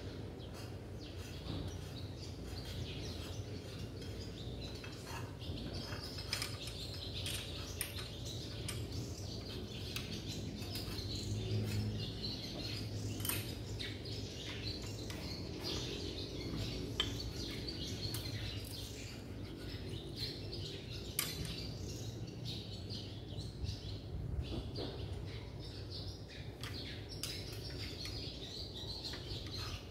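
Birds chirping steadily in the background, with occasional light metallic clicks from hand work at the engine's valve rockers.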